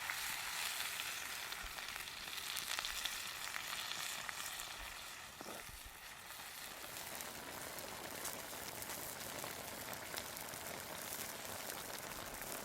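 Food sizzling and crackling in a hot pan, a little louder in the first half.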